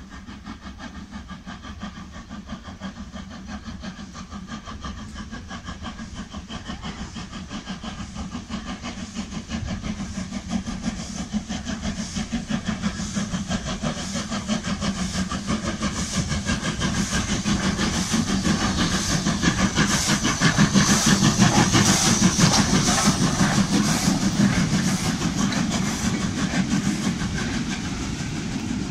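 LMS Jubilee-class three-cylinder 4-6-0 steam locomotive approaching and passing with its train: a steady rhythmic beat with hiss, growing louder to a peak as the engine comes past. The coaches follow with clickety-clack over the rail joints.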